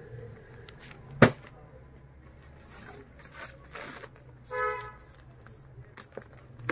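A short horn toot about two-thirds of the way through. It is preceded by a single sharp knock about a second in, with light rustling of plastic packaging around it.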